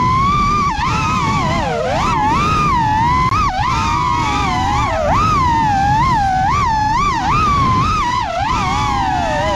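The four BH Avenger 2507 1500kv brushless motors of an FPV racing quadcopter spinning 6-inch DAL 6048 propellers, heard from the quad's onboard camera: a loud whine of several close pitches that keeps rising and dipping as the throttle changes, over a low rushing noise.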